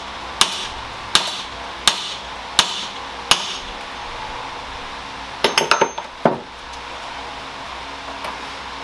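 Hammer blows on a large socket used as a drift to drive the worn mid-shaft bearing off a Saab 9-3's shaft clamped in a vise: five sharp metal strikes about 0.7 s apart, then a quick flurry of lighter clinks and one more blow a little past halfway. The bearing is moving on the shaft with each blow.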